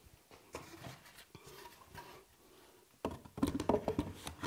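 Wooden pieces knocking and clattering against each other as a block is handled and fitted onto a wooden chisel rack on a workbench: a quick run of sharp knocks starting about three seconds in.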